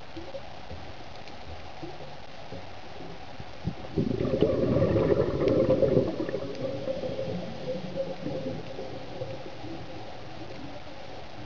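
Underwater ambience with a loud burst of bubbling from about 4 to 6 seconds in, typical of a diver exhaling through a regulator, fading away afterwards.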